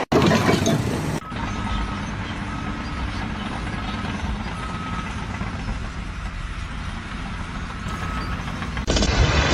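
Heavy vehicle engine running steadily, with a faint reversing beep sounding on and off. A louder burst of noise comes in the first second.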